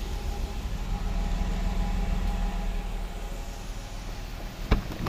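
Steady low rumble, then a single sharp click near the end: the Jeep Wrangler's rear door latch released as the door is pulled open.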